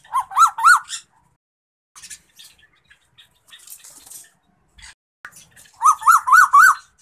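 Male Asian koel calling: two quick runs of about four rising-and-falling notes each, one at the start and another about six seconds in.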